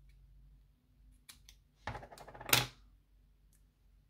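Light clicks and a short rustle from handling a roll of double-sided craft tape and setting tools down on a glass craft mat, loudest about two and a half seconds in.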